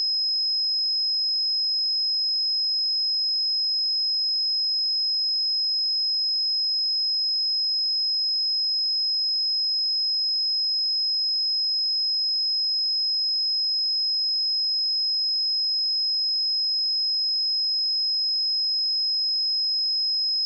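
A pure 5114 Hz sine-wave test tone, one steady high-pitched whistle held at constant pitch and level.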